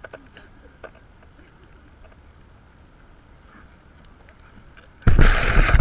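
Low outdoor background with a few faint ticks while the camera lies still in long grass; about five seconds in, a sudden loud rustling scrape starts as grass rubs against the camera microphone.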